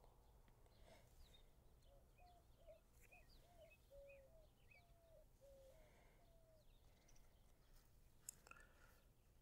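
Near silence, with a faint bird calling in the middle: a run of short, quick chirping notes, about three a second, for a few seconds.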